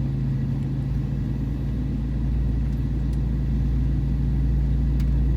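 Steady low drone of an Airbus A319's cabin before takeoff, a constant hum under a rumble, growing slightly louder toward the end.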